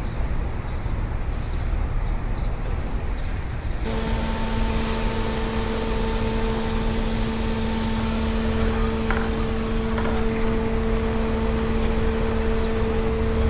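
Low rumble of street traffic; about four seconds in, a robot vacuum cleaner comes in with a steady motor hum and a hiss of suction that keeps on to the end.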